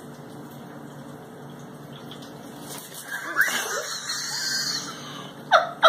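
A high squeal with sliding pitch about three seconds in, lasting over a second. Near the end, a person starts laughing in quick, even bursts of about three a second.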